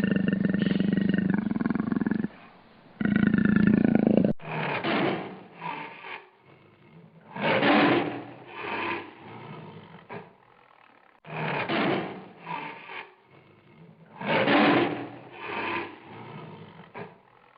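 Lion roaring: one long sustained roar, then after an abrupt break a series of shorter roars, each followed by weaker grunts, repeating about every three and a half seconds.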